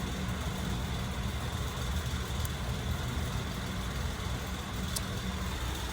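Steady low mechanical hum, engine-like, with a faint click about two and a half seconds in and another near five seconds.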